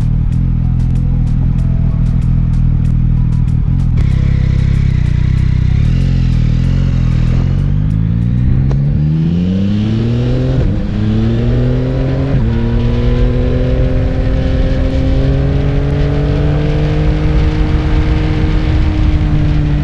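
Yamaha XSR900's 890 cc inline-three engine on the road. It runs steadily at first, then revs up hard through two gear changes a couple of seconds apart, and settles into a steady cruise with a slowly rising note.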